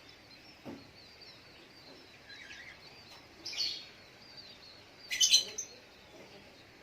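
Little spiderhunter (sogok ontong) calling: a steady run of short, high chirps, with two louder bursts of sharp calls about three and a half and five seconds in, the second the loudest.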